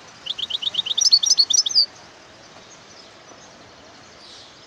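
European goldfinch singing: one quick run of about a dozen fast chirping notes lasting about a second and a half, the later notes pitched higher.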